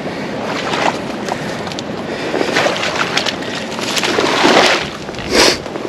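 A person wading through shallow marsh water and pushing through dry cattail stalks: water sloshing with brittle rustling and crackling of the reeds, louder in swells near the end.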